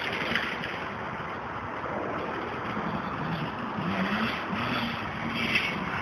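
Dirt bike engine running at a distance, faint, its pitch rising and falling a few times in the second half over a steady background hiss.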